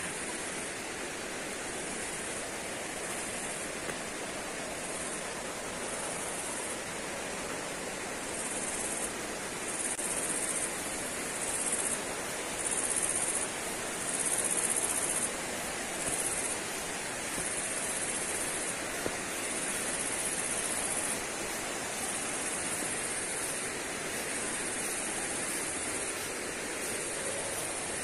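Steady rushing water of a waterfall. A high-pitched buzz comes and goes every second or two over it.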